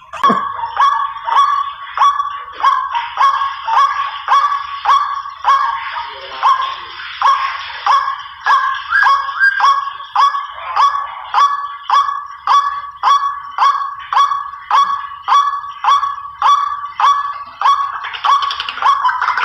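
White-breasted waterhen (ruak-ruak) calling: a long, even run of harsh repeated notes, about two a second, used as a hunting lure call.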